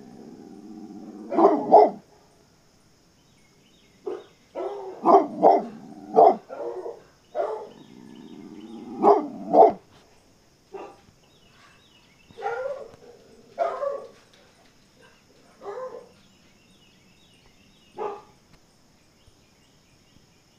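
Dog barking in clusters of quick barks for about ten seconds, then single barks every couple of seconds, alarm barking at coyotes in the pasture.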